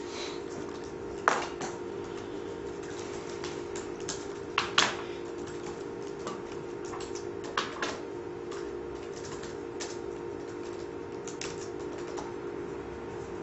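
Computer keyboard being typed on in scattered, irregular key clicks, with a few louder keystrokes among them, over a steady low hum.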